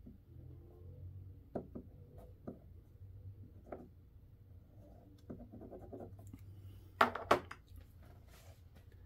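A pen scratching on a small paper note as figures are written, with light taps. Two sharp clicks come close together about seven seconds in.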